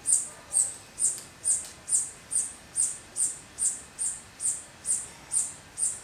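A high-pitched chirp repeating steadily and evenly, about two to three chirps a second, from a small chirping animal.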